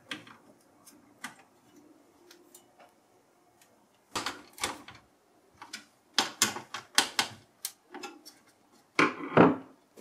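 Clicks and knocks of a CPU cooler being set down onto a computer motherboard and fitted in place. A few faint ticks in the first second, then clusters of sharper clicks from about four seconds in, the loudest near the end.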